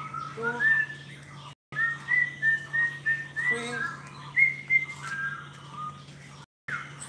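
A bird singing a string of short, clear whistled notes at varying pitches over a steady low hum. The sound cuts out completely twice for a moment.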